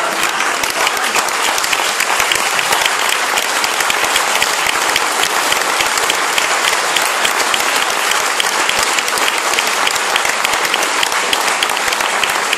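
Audience applauding, a dense, steady round of clapping.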